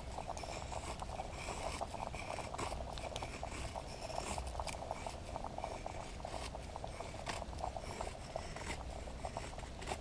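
CRKT M21-04 folding knife's hollow-ground blade shaving curls down a stick of damp maple to make a feather stick: a steady run of short scraping strokes.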